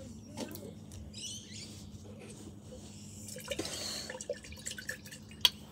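Faint dripping and small clinks from a glass jar of water being handled with its screw lid off, with one sharp click near the end.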